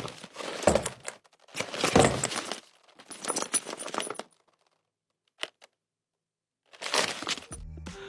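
Foley sound: a bag fitted with metal pieces, jostled and swung to copy a gunman's gear and weapon moving, its metal clinking and jangling in a run of short bursts. After about four seconds there is a pause with two light clicks, then one more burst near the end.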